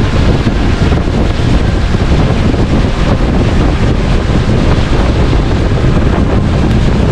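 Steady wind buffeting the microphone on a small boat under way, with water rushing along the hull.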